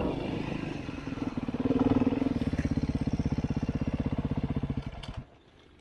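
Dirt bike engine running close by with an even, fast pulsing beat. It gets louder about two seconds in, then stops abruptly near the end.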